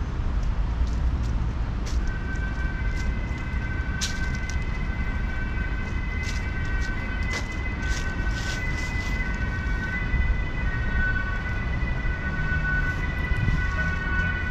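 Street noise with a low rumble of traffic and a steady high whine that sets in about two seconds in and holds, with a few short clicks.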